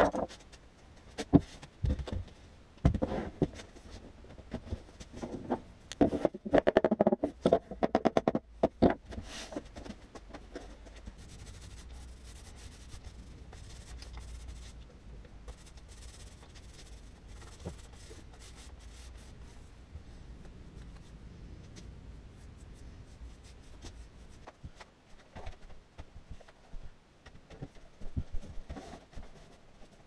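Workshop handling sounds: sharp knocks and clicks of tools and boards being handled on a workbench, then a long stretch of faint steady rubbing over a low hum, with scattered clicks again near the end.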